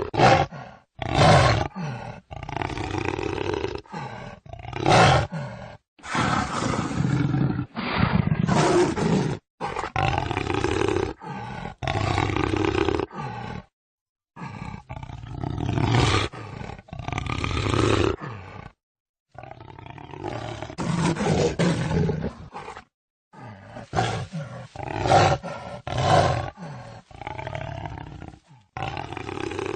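Jaguar roaring and growling, a string of separate rough calls one after another, several of them cut off abruptly with short silences between.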